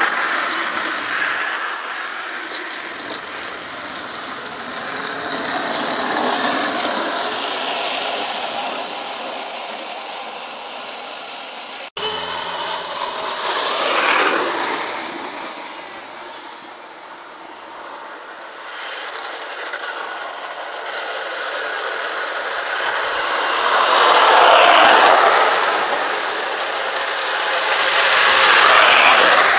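Downhill wooden go-carts rolling fast on asphalt, their small hard wheels giving a rattling rumble that swells and fades as each cart passes, several times over.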